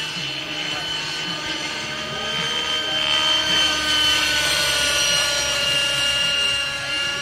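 Radio-controlled Align T-Rex 600 model helicopter flying: a steady high whine of rotor and drivetrain that swells louder from about three to six seconds in as it passes closer.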